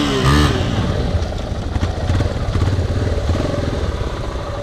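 Trail motorcycle engine running steadily at low revs as the bike rolls slowly, close to the microphone. Its firing strokes come as a fast, even patter.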